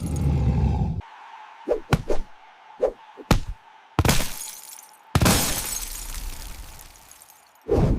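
A string of crash-and-breaking sound effects: several short sharp cracks and a few louder crashes, one of which fades slowly while others cut off suddenly.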